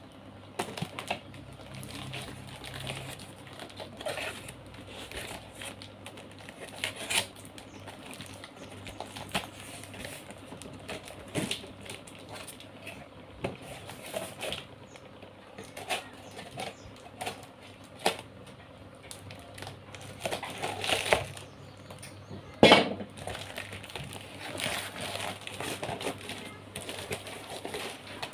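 A cardboard box being handled and opened by hand: scattered rustles, scrapes and light knocks of cardboard, with one sharper, louder knock about three-quarters of the way through.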